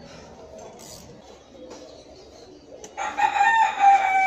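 A rooster crowing once: a long, loud call that starts about three seconds in and slowly falls in pitch.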